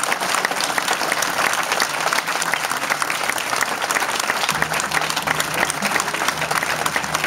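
Audience applauding, dense clapping from many hands. About halfway in, a low steady tone joins underneath.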